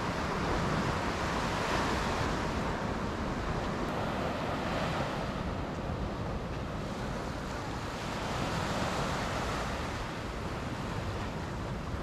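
Small sea waves breaking and washing up a sandy shore, the surf swelling every few seconds, with wind rumbling on the microphone.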